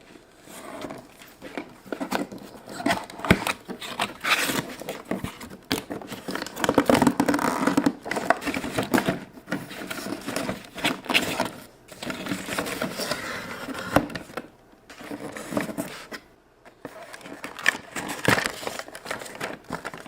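A toy's cardboard box being opened and its plastic packaging handled: irregular scraping, crinkling and clicking rustles, with short lulls.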